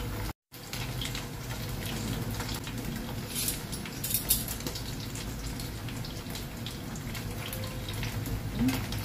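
Spring rolls (turon) frying in hot oil in a pan, a steady sizzle, with a few short clicks of metal tongs turning them around the middle. The sound cuts out completely for a moment about half a second in.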